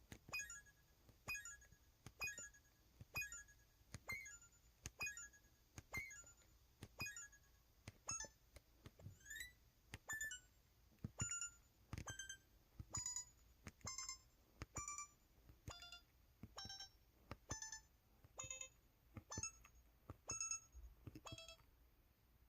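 EV-W350 mobile phone keypad beeping in its 'Beep' button-sound setting: short electronic beeps, about one a second, each with a key click, the pitch changing from key to key. One beep near the middle glides upward.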